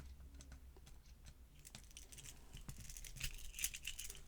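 Faint, scattered metal clicks and scraping of a small tool being worked into an opened padlock, growing busier in the second half.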